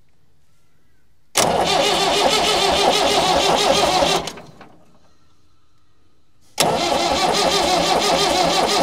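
Starter motor cranking the Massey Ferguson 178's four-cylinder Perkins diesel twice, about three seconds each, without it firing. It turns over slower than expected, which the owner suspects is the Lucas starter running at half power from a rusted brush spring.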